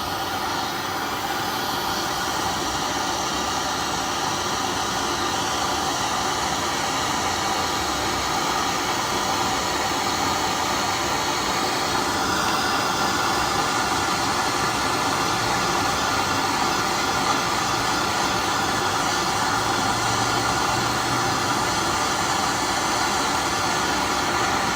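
Steady, loud rushing hiss that holds without a break and grows slightly louder over the first few seconds.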